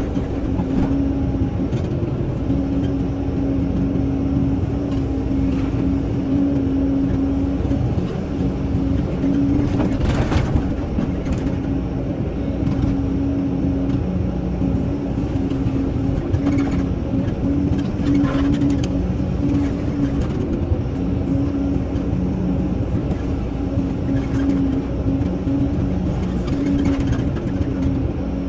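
Caterpillar 320C excavator's diesel engine and hydraulics running steadily under load while digging and swinging, heard from the cab, with a steady hum. There are brief louder scrapes and clunks from the bucket and soil about ten seconds in and again near eighteen seconds.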